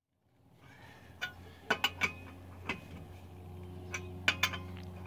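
Lug wrench clinking against the steel lug nuts of a donut spare wheel as they are tightened: about eight sharp metallic clinks at irregular intervals, over a steady low hum.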